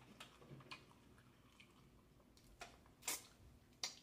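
Faint eating sounds from fingers and mouth on seafood boil: soft chewing and wet smacking, with a few sharp clicks, the three loudest in the second half.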